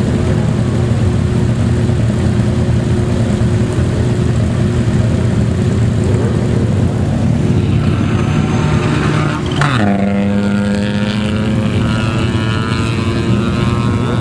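Autocross race car engines running hard on a dirt track. About nine and a half seconds in, one engine's pitch drops sharply as it goes past, then a strong steady engine note holds to the end.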